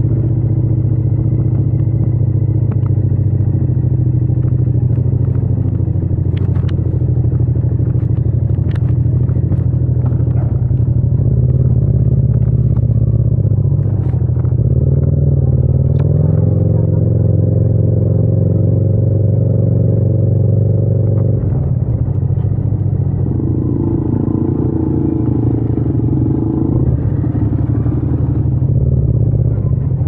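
Yamaha MT-07's 689 cc parallel-twin engine running at low, steady revs as the bike rides slowly through traffic, recorded raw without wind noise. A few light clicks come through over it.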